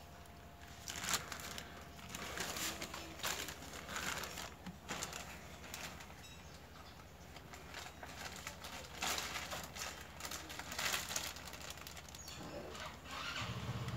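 Plastic parts bag and paper wrapping crinkling and rustling in irregular bursts as they are handled and pulled apart. A low steady drone comes in near the end.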